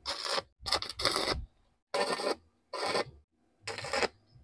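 Arc welding crackling in short bursts, about six in four seconds with brief gaps between: tack welds joining square steel tube into a rectangular frame.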